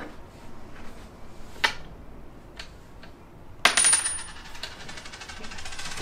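A small metal ring drops onto a hard tabletop, ringing and rattling quickly as it spins and settles for about two seconds. A single light tap comes a couple of seconds earlier.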